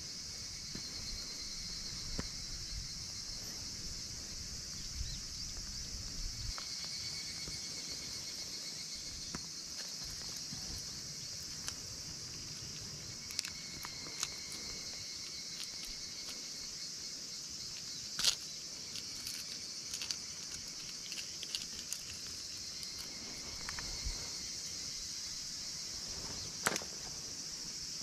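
Steady high-pitched chorus of summer insects, with a few sharp clicks and knocks from hands handling a caught bass and a hard-plastic minnow lure.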